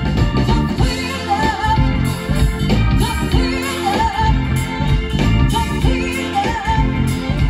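Live band playing with a woman singing lead into a microphone, over a steady beat and bass guitar.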